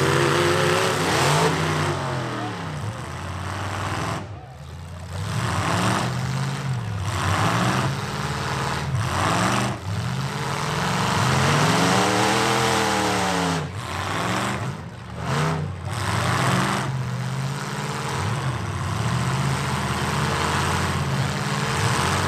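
Several demolition-derby trucks' engines revving, their pitch rising and falling again and again as the trucks push and spin in the dirt.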